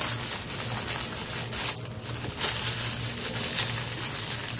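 Packaging rustling and crinkling as it is handled and opened, a continuous irregular rustle.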